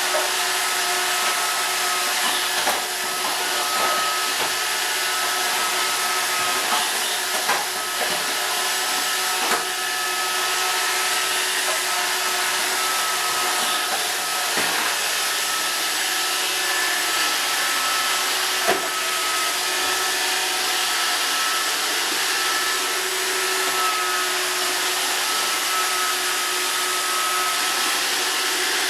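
Roomba robot vacuum cleaner running with a steady whirring hiss and a constant high whine, with a few short knocks scattered through it.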